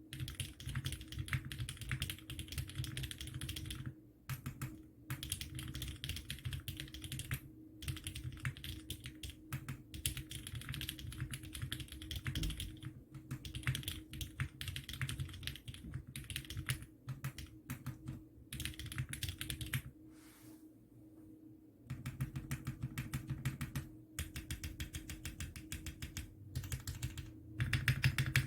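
Typing on a Bakeneko 65 mechanical keyboard with lubed Cherry MX Hyperglide Black linear switches in an aluminium plate on a soft gummy O-ring mount. It is a fast, steady stream of keystrokes with a few brief pauses. The typing drops to a faint few keys for about two seconds about two-thirds of the way through.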